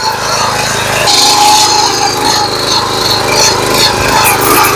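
Small power weeder's engine running steadily under load as its front rotary tines churn the soil and a rear ridging attachment earths up a furrow; it grows louder about a second in.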